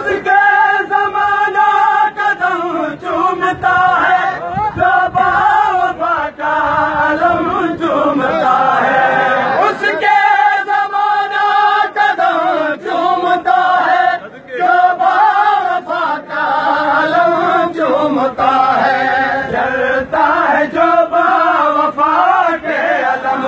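A group of men's voices chanting an Urdu noha together, a devotional lament sung as a unison refrain, with crowd noise beneath.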